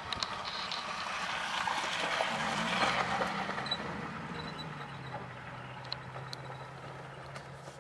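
A vehicle engine running with a steady low hum that sets in about two seconds in, under a rush of noise that swells and then fades around three seconds in.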